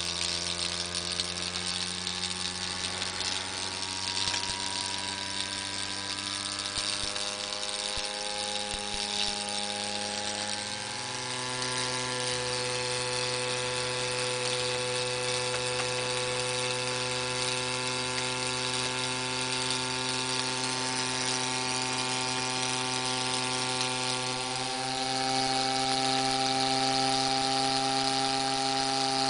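Miniature vertical steam engine running fast under steam, making a steady high buzz of rapid exhaust beats. The pitch steps up about a third of the way in as it speeds up, and it grows a little louder near the end.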